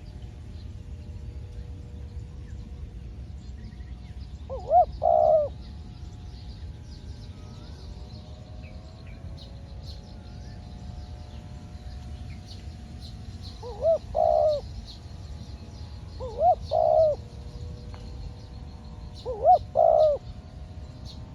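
Spotted dove cooing: four short phrases several seconds apart, each a quick note and a longer rolling coo. Faint chirping of small birds and a low steady rumble sit underneath.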